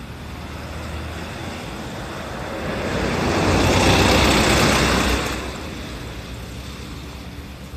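A road vehicle passing by: tyre and engine noise swells over a couple of seconds, is loudest about four seconds in, then fades.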